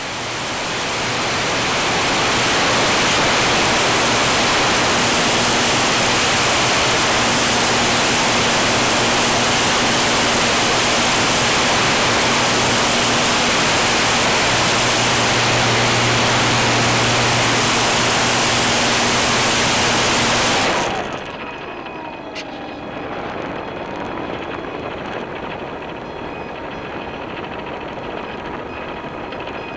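Apprentice RC plane heard from its onboard camera in flight: heavy wind rush with the motor and propeller running at a steady hum. About two-thirds of the way through, the noise drops suddenly as the power comes off, leaving quieter airflow and a faint tone that dips and rises again.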